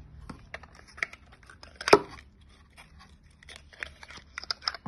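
Hands handling cosmetics packaging, a small cardboard carton and bottle: a run of light clicks and rustles, with one louder knock about two seconds in.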